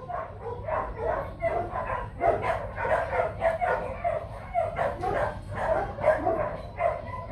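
Dogs barking over and over in quick short barks, about three or four a second, without a break.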